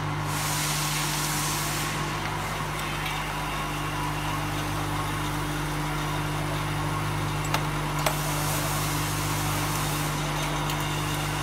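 MIC-L40 vial filling, stoppering and cap-crimping machine running with a steady mechanical hum. A high hiss comes twice, each about a second and a half long, and two sharp clicks come about half a second apart a little past the middle.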